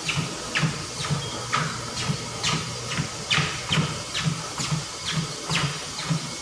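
Person running on a treadmill: footfalls on the moving belt about twice a second, over the steady hum of the treadmill.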